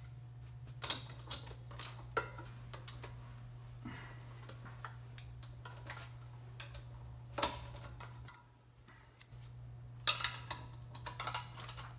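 Irregular small clicks and metallic clinks of hands handling the motor and its fittings during reassembly of an EverClean unit, the sharpest about seven seconds in and a quick cluster near ten seconds. A steady low hum runs underneath and cuts out for about a second near eight seconds.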